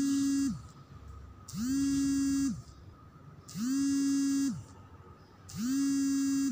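Electronic buzzing tone beeping in a steady on-off pattern: each beep lasts about a second and repeats every two seconds, sliding up in pitch as it starts and down as it stops.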